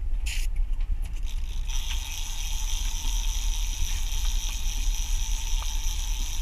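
A big-game fishing reel's drag whining steadily as line pays out to a hooked bluefin tuna. The whine starts suddenly about two seconds in, over a constant low rumble.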